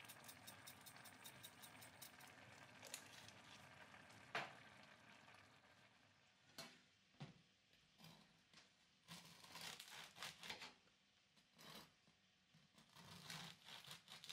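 Cumin seeds rattling as they are shaken from a jar over a simmering pot. About halfway through, a bread knife saws through a crusty baguette on a wooden board, the crust crackling in short, uneven bursts.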